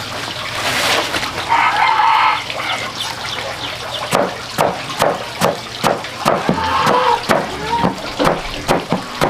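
Large kitchen knife chopping through shredded bamboo shoots. The chops come as sharp knocks, about two or three a second, from around four seconds in.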